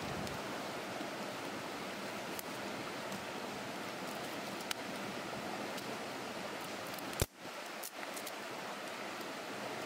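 Small campfire of dry twigs catching, with a few sharp crackles over a steady rushing noise. About seven seconds in there is one louder sharp click, and the sound briefly drops out.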